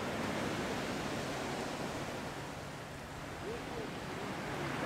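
Steady ambient noise with faint distant voices, one briefly audible about three and a half seconds in.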